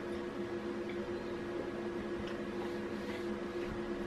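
Steady electrical hum of room tone, with a few faint small clicks about two to three seconds in.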